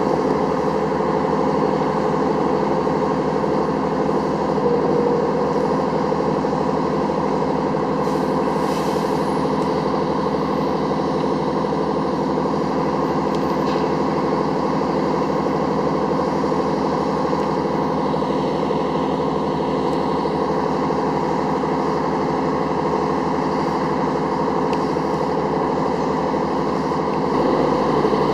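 Diesel engines of a LARC-LX amphibious cargo vehicle running steadily at a constant speed, with a brief hiss about eight seconds in.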